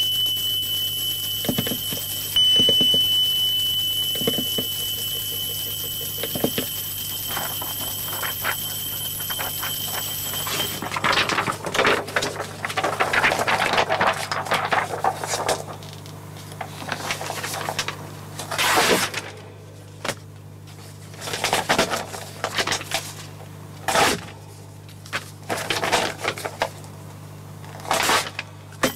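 A steady, high-pitched electronic tone like an alarm, held for about ten seconds with one brief break, cuts off suddenly. Irregular rustling and scraping of handled objects follows, with a few sharp knocks.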